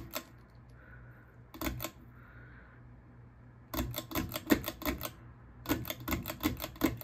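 Emerson Northwind ceiling fan slowing down, its motor giving a faint low hum. Over the hum come a few single clicks and two runs of rapid clicking, about a second each, in the second half.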